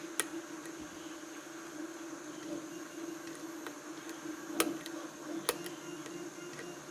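Steady hum of a 3D printer running, with a few sharp metallic clicks as a lock pick works the pins of a challenge lock's cylinder: one right at the start and two about four and a half and five and a half seconds in.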